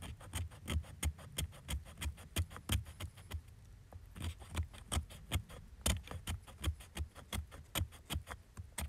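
A knife blade scraping fine shavings off a stick of wood in quick repeated strokes, about three a second, each a short dry rasp with a dull knock.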